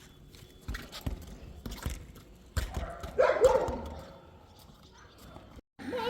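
Dog barking a few times in quick succession about three seconds in, after several low thumps.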